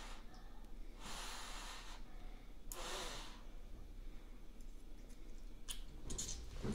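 Children eating hot noodle soup: two breathy mouth sounds, each about a second long, as they draw in and cool the hot noodles, then a few light clicks near the end.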